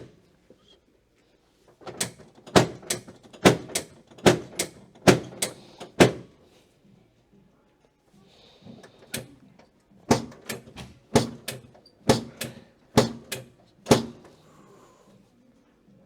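Chiropractic drop table's pelvic drop section clacking down again and again as the chiropractor thrusts on the pelvis. There are two runs of about ten sharp knocks, roughly two a second, with a short pause between them.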